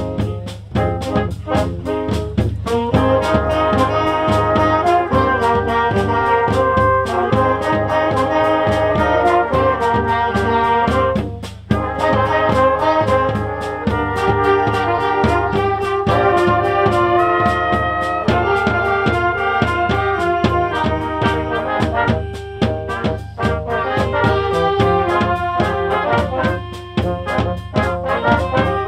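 Fanfare training band playing: a brass melody of held notes over a steady beat, with a brief break about eleven seconds in.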